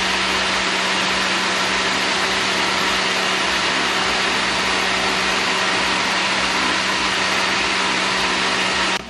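Countertop blender running at a steady full speed, blending mango chunks and water into juice: an even motor noise with a constant hum that cuts off abruptly near the end.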